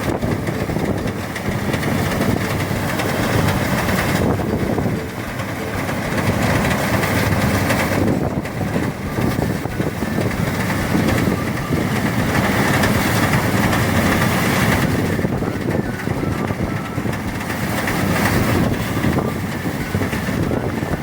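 Engine-driven rice threshing machine running steadily, its motor and threshing drum making a loud, continuous mechanical noise that wavers slightly in level.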